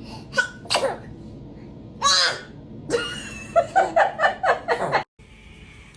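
Short voiced sounds and laughter, with a quick run of laughs starting about three and a half seconds in, cut off abruptly near the end.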